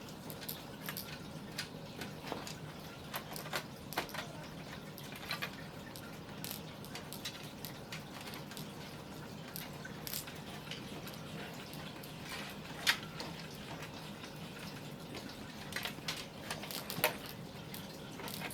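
Irregular light clicks and taps of plastic cable connectors and computer parts being handled and plugged in, over a steady low hum. Two louder clicks land near the end.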